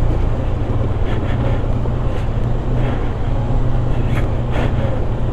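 Motorcycle engine running steadily at low speed while the bike rides through a shallow, rocky stream, with wind buffeting the microphone and a few brief knocks from the wheels over stones.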